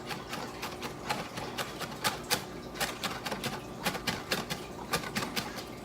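Kitchen knife chopping on a cutting board by hand, a run of quick, irregular taps several times a second as ingredients are chopped small.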